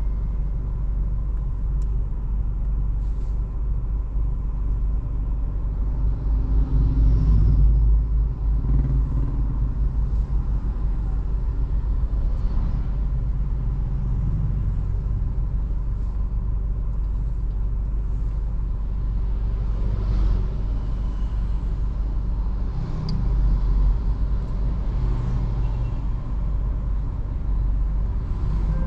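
Steady low rumble of a Volkswagen Virtus with its 1.0 TSI engine running, heard from inside the cabin, swelling briefly a couple of times.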